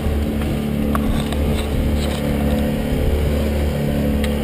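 Boat motor running steadily at low speed, with a few sharp clicks over it.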